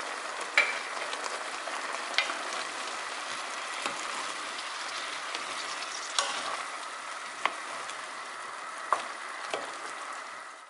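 Soy-sauce and syrup glaze bubbling and sizzling around braised baby potatoes in a pot, a steady hiss with a sharp pop every second or two, fading out near the end. The glaze is thick and reduced, the last stage of the braise after the rice syrup and chili peppers go in.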